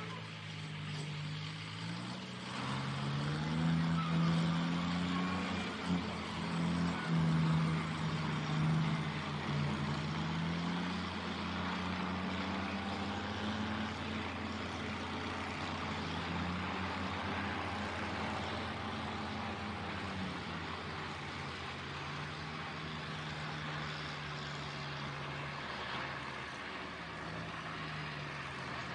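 Heavy-duty earth mover's diesel engine working, its pitch rising and falling as it revs up and eases off, over a steady mechanical noise.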